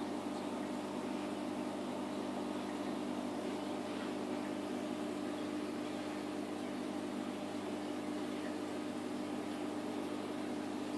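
Steady mechanical hum of aquarium equipment heard underwater, a constant low drone that does not change.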